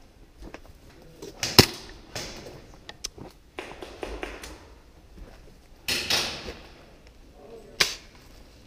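Two sharp cracks, the loudest about a second and a half in and another near the end, among short bursts of scuffing and rustling.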